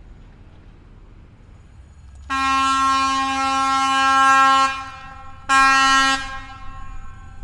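AČ2 diesel railcar's air horn sounding two blasts on one steady note: a long blast of about two and a half seconds, then a short one of under a second.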